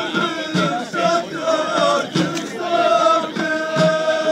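Ahidous, the Amazigh group chant: a chorus of voices singing in unison over low drum beats. About three seconds in, the voices settle on one long held note.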